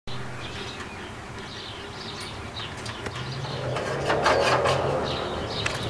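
Small birds chirping in short calls over a steady low hum, with a few clicks and a rustle in the second half.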